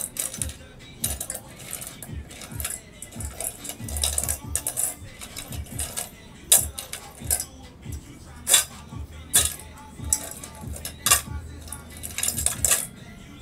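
Irregular sharp metallic clinks from a stainless steel cup of paint being handled, several of them loud, over background music with a steady low beat.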